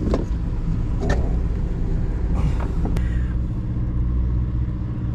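A sportfishing boat's engine running steadily, a low hum, with a few short knocks on deck about a second apart early on.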